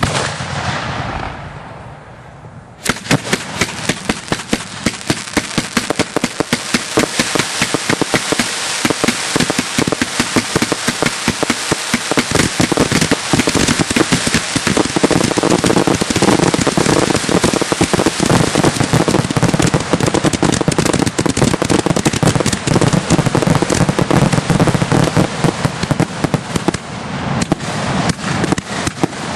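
Aerial fireworks: a sudden bang at the start with a fading hiss, then about three seconds in a dense, unbroken barrage of crackling pops and bangs starts and keeps going.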